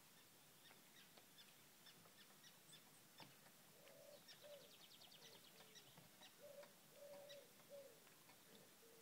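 Faint dawn birdsong: short low hooting calls, some dropping in pitch, repeat from about halfway through, over scattered high chirps, with a quick high trill lasting about a second and a half just before the middle.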